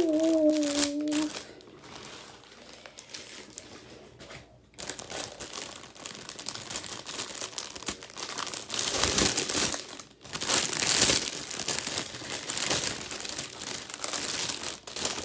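A clear plastic bag crinkling and rustling as hands pull at it and open it. The crinkling comes in irregular bursts, louder in the second half.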